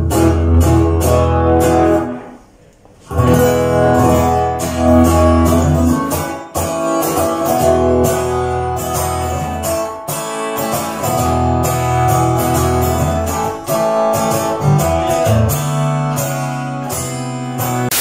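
Acoustic guitar strummed in chords. It stops briefly about two seconds in, then resumes and keeps going.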